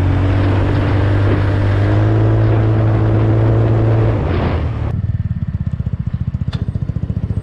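Venom X18R 200cc CVT pocket bike engine running at riding speed, with wind and road noise on the bike-mounted microphone. About four seconds in the throttle closes and, as the bike rolls to a stop at the pump, the engine settles to an even, rapidly pulsing idle.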